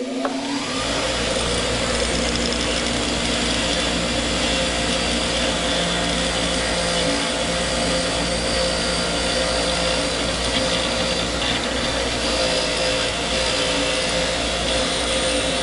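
Baldor bench grinder's wire wheel running, coming up to speed at the start, with a rusty diesel cylinder head bolt held against it to scrub it clean: a steady scratchy brushing over the motor's hum.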